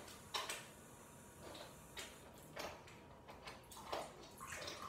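Several scattered soft knocks and clatters, a few seconds apart, as slime-making containers and supplies are handled.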